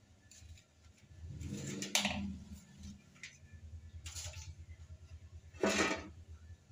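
Three short scrapes and knocks of a loose ceramic stair tile, its back crusted with old adhesive, being handled and tilted up. The last, near the end, is the loudest, and a low rumble runs underneath.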